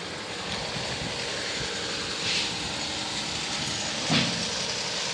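Kubota rice combine harvester's diesel engine running steadily, with a short hiss about two seconds in and a thump about four seconds in.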